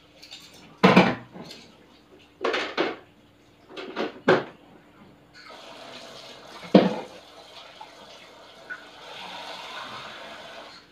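Water splashing at a kitchen sink in several short loud bursts during the first seven seconds, with a steady stream of running water from about halfway through.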